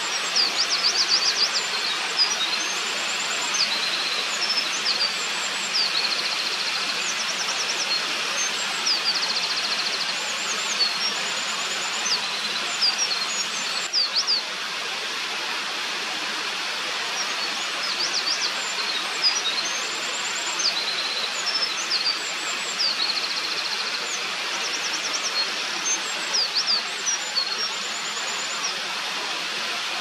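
Eurasian wren singing: repeated long songs of rapid, high trills and sharp notes, with a pause about halfway through. A mountain stream rushes steadily underneath.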